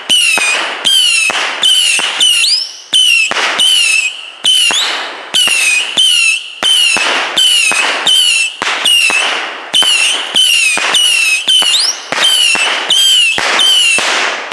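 Consumer firework battery firing a steady run of whistling shots, about two a second: each a sharp pop followed by a short high whistle.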